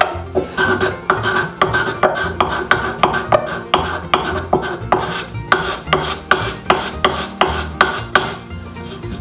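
Hand-worked rasping and rubbing against the wooden body of a small Japanese kanna plane, in quick, even back-and-forth strokes about three times a second.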